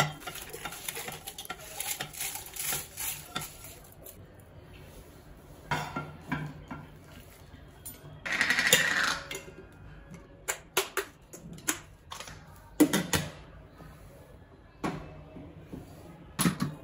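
Dry whole spices, almonds and dried chilies tipped from a pan into a steel mixer-grinder jar, rattling against the metal. Further on comes a short rush of noise, then a run of sharp clicks and knocks as the steel jar and its lid are handled.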